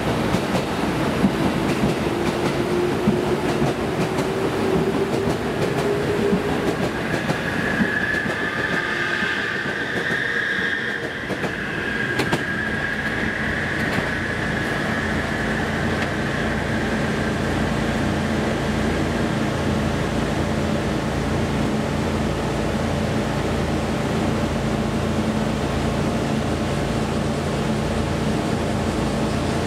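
A train running past close by, with wheel and rail noise and a tone that rises over the first few seconds, then a squeal of wheels on the rails for several seconds. After that a steady low hum.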